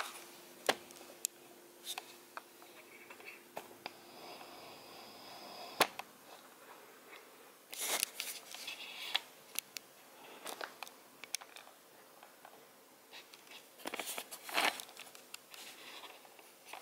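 Scattered handling noises: light clicks and knocks, with brief rustling about eight seconds in and again near the end, as a camera is moved and re-aimed over an opened cardboard box packed with foam.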